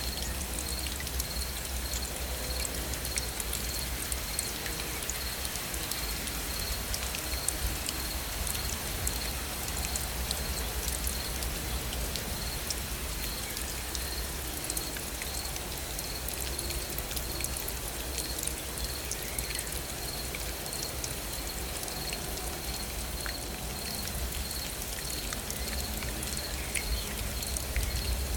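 Steady rain falling, with many individual drops ticking over an even hiss and a low rumble underneath. An insect chirps high in an even repeating pulse throughout.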